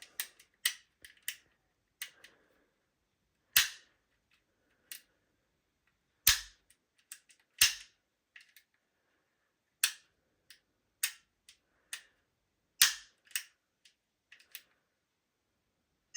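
An Armourer Works G18C gas blowback airsoft pistol worked by hand, giving irregular sharp metallic clicks and a few louder snaps as the slide and trigger are cycled. Its steel hammer set is not engaging properly.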